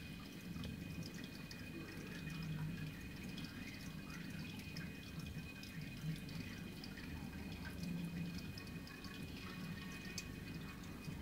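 Water trickling and dripping in a running aquarium, with many small ticks, over a steady low hum.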